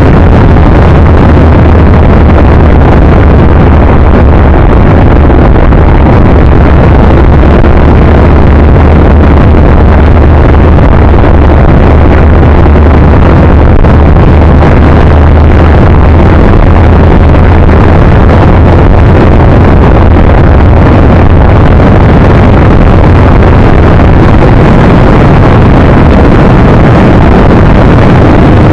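Loud, steady wind roar and a low drone on a camera carried on a moving bike, with the level pinned at full scale and no change in pace throughout.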